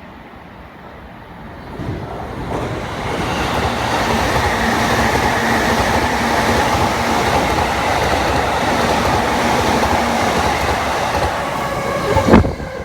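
Japanese passenger train running close by on the rails, its noise building about two seconds in and then holding steady, with a sharp loud crack near the end before it cuts off abruptly.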